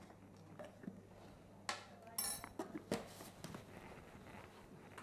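A metal measuring spoon clinking and tapping against a metal mixing bowl while spooning cornstarch. A few separate clicks and knocks, with one sharp clink that rings briefly a little after two seconds.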